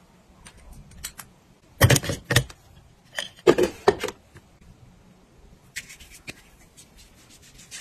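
Cosmetic containers and a ceramic makeup-brush pot being picked up and set down on a glass vanity top: sharp knocks and clacks in two clusters, about two and three and a half seconds in. After that comes a soft rubbing of hands working in hand cream.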